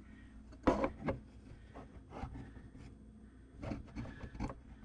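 Knocks and scraping as parts are handled in the cabinet under a kitchen sink while a garbage disposal is being fitted. The loudest knock comes just under a second in, followed by a few lighter knocks and scrapes.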